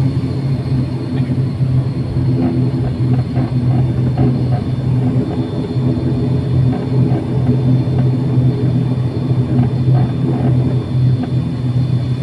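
ATR turboprop engine and propeller running steadily at taxi power, heard inside the cabin: a loud, constant low hum with a thin high whine above it.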